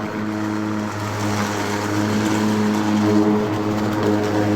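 Mowrator 2WD remote-control lawnmower running with a steady motor hum while mowing rough ground; the hum dips briefly about a second in, then holds.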